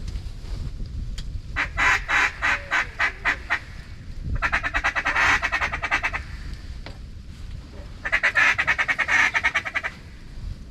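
Duck quacking in three runs of quick, rapidly repeated quacks, with short quiet gaps between the runs.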